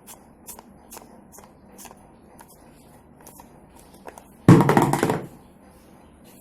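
Light hand-tool clicks about twice a second as a replacement suspension buffer is fitted to a washing machine, then a loud clatter about four and a half seconds in.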